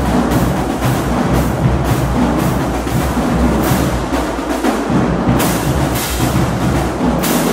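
Marching drumline playing a percussion feature: snare drums and marching bass drums in a dense, driving rhythm, with repeated crash cymbal hits over the top.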